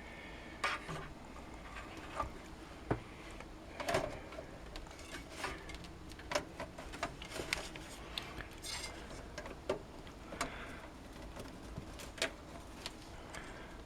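Irregular light clicks and knocks of a motherboard being handled and pushed into a PC case, up against the I/O back plate.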